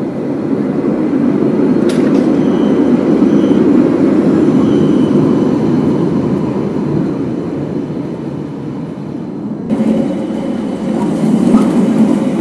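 Helsinki low-floor trams rolling past on street track: a steady low rumble of steel wheels on rail that swells as the tram goes by. About ten seconds in, the sound changes abruptly to another passing tram.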